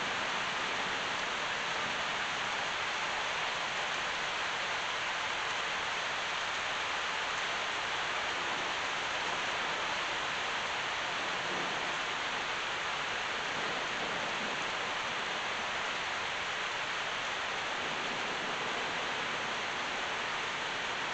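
Very heavy rain pouring down steadily, an even hiss that never lets up.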